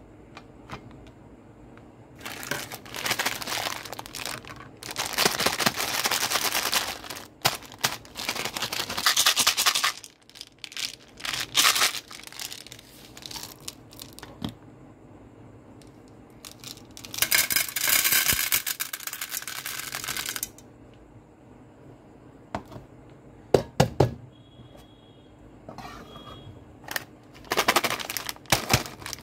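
Hands handling candy packaging: plastic wrappers crinkling and tearing in several bursts, and small candy-coated chocolates rattling as they are poured into a metal tin, past the halfway point. Sharp clicks and more wrapper crinkling near the end.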